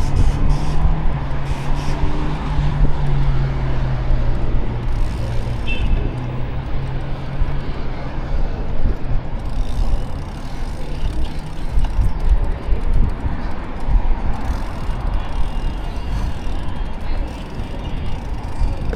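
City road traffic heard while cycling, a constant low rumble of vehicles. A steady low hum runs through the first seven seconds or so.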